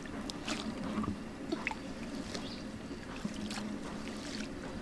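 Light splashing and trickling of shallow pond water as hands work in it by the bank, a handful of short splashes scattered through.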